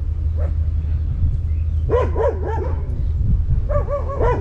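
Dogs barking in two quick runs of barks, about two seconds in and again near the end, over a steady low rumble.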